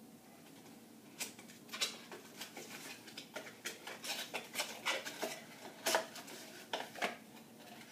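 Small cardboard product box being opened by hand: an irregular run of sharp crackles, clicks and rustles as the paperboard flap is pried open and the packaging handled.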